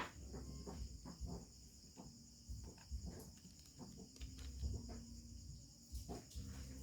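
Steady high-pitched chirring of crickets in the background, with scattered light clicks and knocks from hands working on the speaker.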